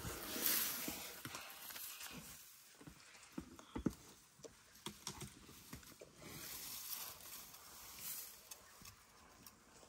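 African elephants feeding close by: dry grass rustling and tearing as their trunks pull it up, with scattered soft snaps and thuds.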